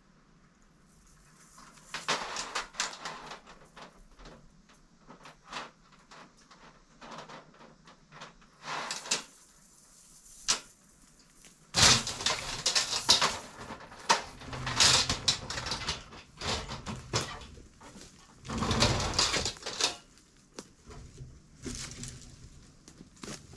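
Brush and leaves rustling and crackling, with scattered knocks and scrapes of hands-on work in the undergrowth. It comes in irregular bursts, heavier from about halfway through.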